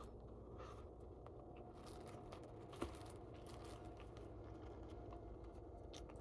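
Faint sounds of eating and handling food: soft rustles and small clicks, with one sharper click about three seconds in, over a low steady hum.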